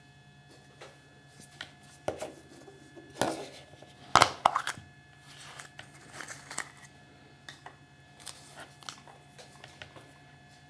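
A wrapper being crinkled and torn by hand, with irregular rustles and small clicks, loudest in a cluster about three to five seconds in.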